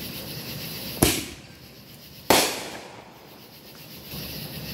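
Two loud firework bangs just over a second apart, each followed by a rolling echo that dies away.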